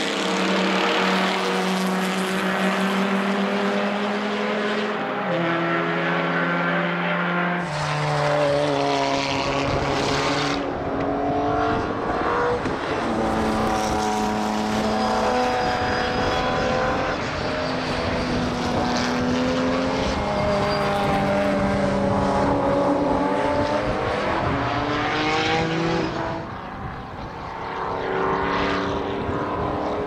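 Racing car engines on a circuit: several cars accelerating and braking through corners, their engine notes stepping up and down with gear changes and overlapping one another. From about 8 seconds in, wind rumbles on the microphone underneath.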